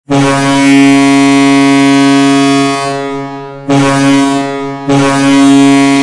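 The Bakersfield Condors' ice hockey goal horn, a deep, loud horn sounded to mark a goal. It gives a blast of about three seconds, a short blast of about a second, then a third long blast that is still sounding at the end.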